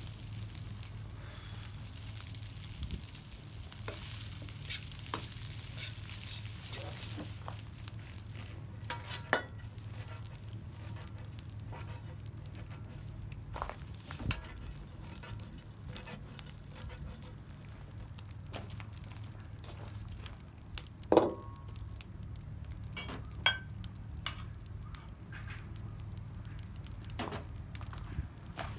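Fried rice sizzling in a pan over a wood fire, with scattered sharp clicks and knocks of a utensil against the pan.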